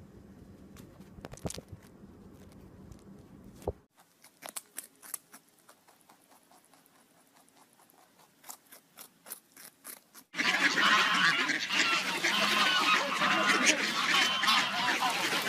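Faint clicks and taps for the first ten seconds, then, from about ten seconds in, a loud, dense clamour of honking waterfowl.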